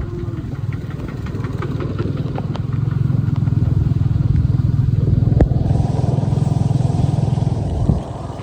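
Motorcycle engine running steadily with a low, even pulse and a few clicks. A faint hiss joins about five and a half seconds in, and the engine drops in level near the end.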